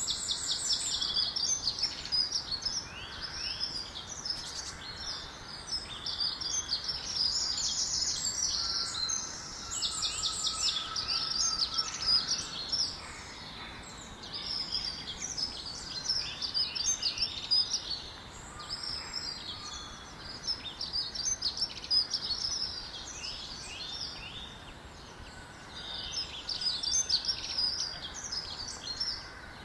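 Songbirds singing: phrases of rapid, high-pitched chirps and trills, one after another with short gaps, over a faint steady background hiss.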